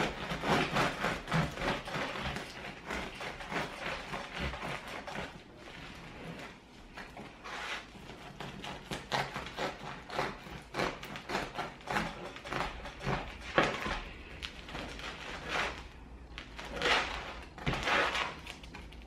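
Serrated bread knife sawing back and forth through a crusty sourdough loaf, the crisp crust crackling under each stroke. The sawing is quick and steady for the first several seconds, turns sparser, and comes back in two louder spells near the end.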